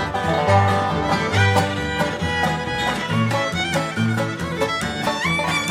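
Bluegrass band playing an instrumental break, a fiddle carrying the lead over banjo and guitar, with a steady alternating bass beat.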